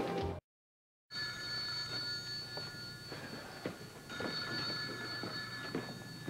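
A desk telephone ringing, twice, each ring about two seconds long with a second's pause between them, after a brief dropout to silence.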